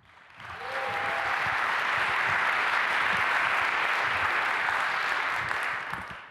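Audience applauding: clapping swells up within the first second, holds steady, then dies away near the end.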